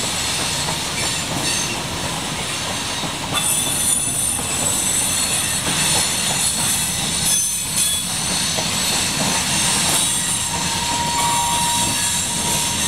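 CSX coal hopper cars rolling past: a steady rumble of steel wheels on rail, with high-pitched wheel squeal that grows louder about a third of the way in and a short squeal tone near the end.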